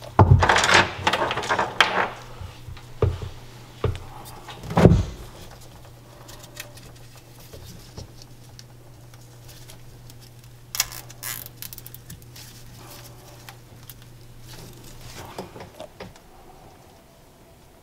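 Hands working on a jet ski engine in its hull: a rapid run of clicks and rustling in the first two seconds, then a few sharp knocks and scattered clicks of parts being handled. A faint low hum runs under it and stops a couple of seconds before the end.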